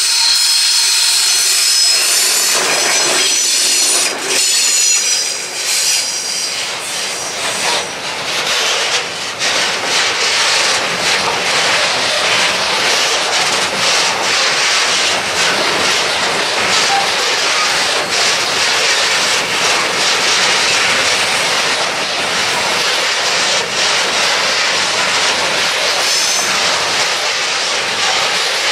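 A DB Class 232 'Ludmilla' diesel locomotive passing close by, with a high whine in the first few seconds. It is followed by the steady rumble and clatter of a long train of loaded hopper wagons rolling past.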